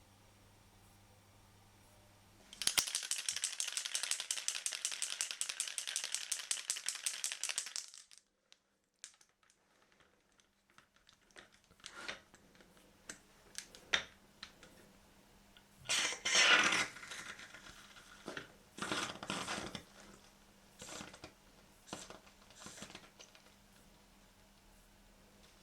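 Aerosol can of bore foam being shaken, its mixing ball rattling fast and evenly for about five seconds. Scattered clicks, knocks and a few brief rustling bursts from handling the cleaning gear follow.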